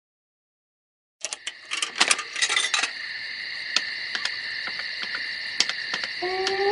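Clicking and rattling from a bicycle ridden over a rough path, cutting in suddenly about a second in after silence, with irregular sharp clicks over a steady high hum. A few pitched tones join near the end.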